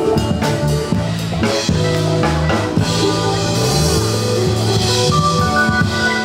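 Live band playing with a drum kit keeping the beat over a moving bass line, cymbals washing in about halfway through.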